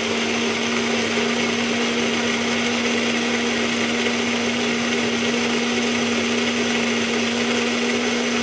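Small personal blender running steadily at one speed, its motor giving a constant hum while it purées cooked rice and water into a smooth cream.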